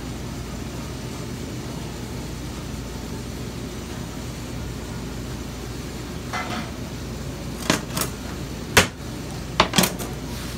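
Steady low hum of kitchen equipment. In the second half come a handful of sharp knocks and clicks, the loudest about nine seconds in, as a rolled braciole is handled and tied with butcher's twine on a plastic cutting board.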